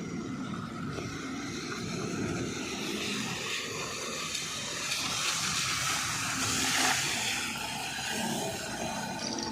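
A road vehicle passing on wet asphalt, its tyres hissing. The sound builds to a peak about six to seven seconds in, then eases off.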